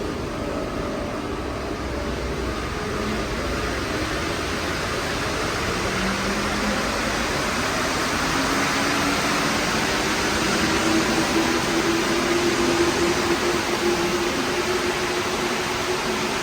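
Santiago Metro Line 5 rubber-tyred train running on a wet elevated viaduct, with a steady hiss of rain and wet tyres. A whine starts rising in pitch about six seconds in, then holds steady.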